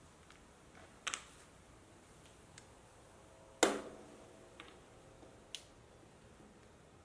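Scattered small clicks and knocks as plastic spacer blocks and spring clamps are set against a plywood panel and lattice rail, with a double click about a second in and one louder knock with a short ring about three and a half seconds in.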